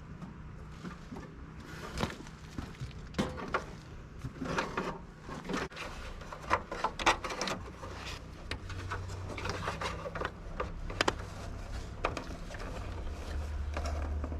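Hands working wires along a tractor: irregular rubbing, scraping and clicking handling noises as wiring is pulled and routed. A low steady rumble builds in the second half.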